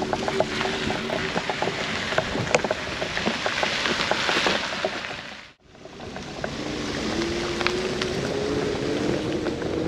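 A motorhome driving slowly on a wet road: tyre hiss from the wet surface over a low engine note, with scattered ticks. The sound breaks off for a moment about halfway, then the engine note rises steadily as the vehicle picks up speed.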